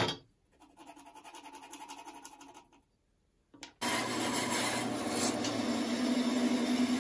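A pencil scratches across a small wooden block as it marks lines, after a sharp click. About four seconds in, a much louder steady rushing noise with a low hum starts suddenly and runs on.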